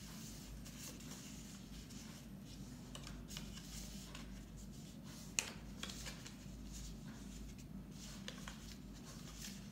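A sheet of card being folded and creased by hand on a table: faint paper rustling and rubbing with scattered small clicks, the sharpest tap about five and a half seconds in.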